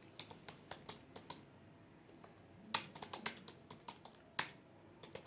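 Typing on a computer keyboard: uneven runs of key clicks, with a pause of about a second near the middle.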